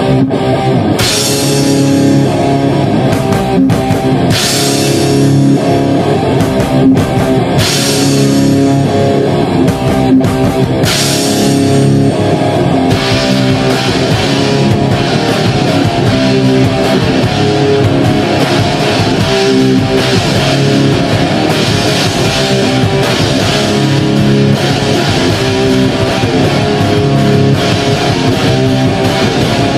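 Punk band demo recording: electric guitar, bass and drum kit, with no vocals. A song opens with cymbal crashes about every three seconds. About 13 seconds in, the drums settle into a steady beat under a constant wash of cymbals.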